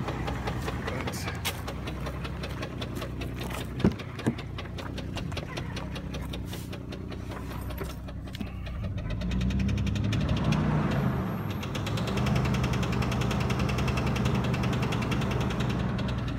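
1999 Jeep Grand Cherokee engine running with a loud, rapid ticking, like a tin can in bike spokes, then revved up about nine seconds in and held, the ticking getting louder and poppier with the throttle. The owner also has an exhaust leak and is not sure whether it is connected.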